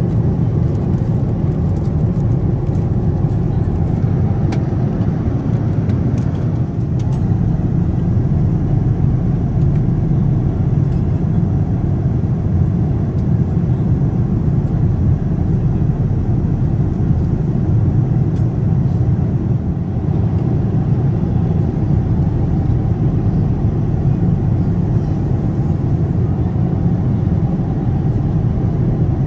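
Steady in-flight cabin noise of a Boeing 787-10 at cruise: an even low rush of airflow and engines with no rise or fall.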